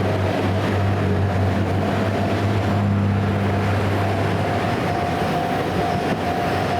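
Electric train running past: a steady rumble with a low hum and a thin, higher tone that comes and goes.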